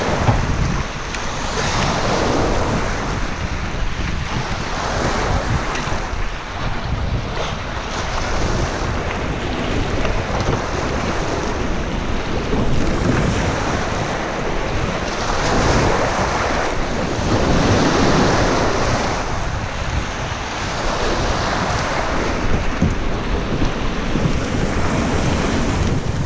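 Choppy river waves splashing against the metal hull of a boat grounded on rocks, swelling and easing every few seconds, with heavy wind rumbling on the microphone.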